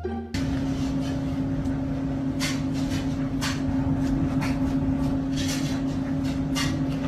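A steady mechanical hum with one low, even tone over a noisy background, with five short clicks spaced about a second apart from a couple of seconds in.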